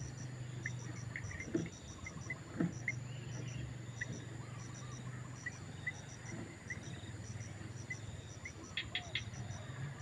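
Crickets chirping: short high pulses in little groups of two to four, repeating steadily, over a steady low hum. Faint short peeps come about once a second, and a quick run of three clicks sounds near the end.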